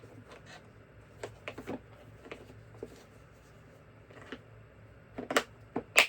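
Scattered clicks and light knocks of small objects being handled and set down, with a quicker, louder run of clacks about five seconds in.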